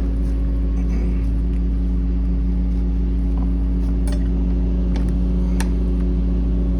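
Engine of a 1968 Chevrolet K20 pickup running steadily with a low, even hum, with a few faint light clicks and rattles.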